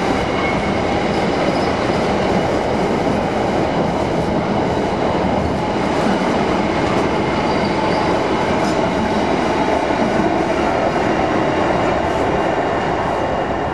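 Freight train wagons rolling past on the rails: a loud, steady rumble of wheels on track.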